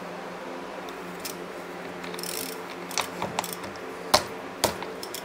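Shop fan humming steadily, with a few scattered sharp metal clicks and knocks from tools and motorcycle parts being handled, the two loudest about four and four and a half seconds in.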